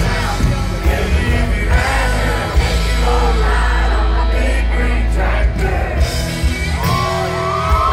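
Live country music: a man singing over an acoustic guitar and full band with a heavy, steady bass line, recorded loud from among the audience. A few notes are held near the end.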